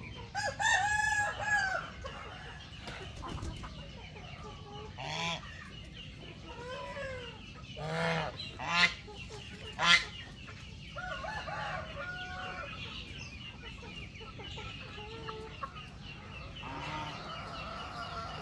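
Free-range chickens clucking and calling, with a rooster crowing among them and a few sharp squawks about nine and ten seconds in.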